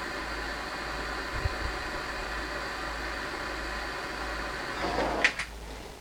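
A small motor running steadily, which winds down about five seconds in; two sharp clicks follow.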